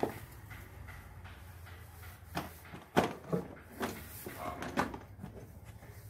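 Several knocks and thuds of objects being handled and set down, the loudest about three seconds in, over a low steady hum.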